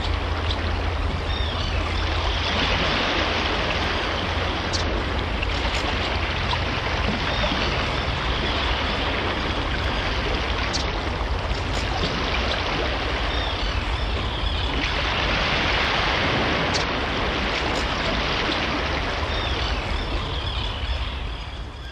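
Steady rushing of water, rising in two broad swells about a dozen seconds apart, over a low hum. It fades out at the very end.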